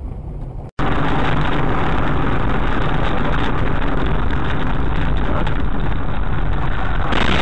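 A car's dashcam recording steady driving noise from inside the moving car: engine, tyre and wind noise blended into a loud, even rush. It starts abruptly about a second in, after a short dropout.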